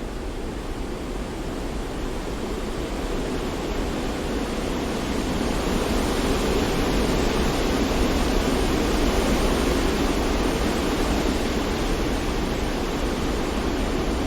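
Steady white-noise-style rushing hiss with no pitch or rhythm, growing a little louder over the first several seconds and then holding even.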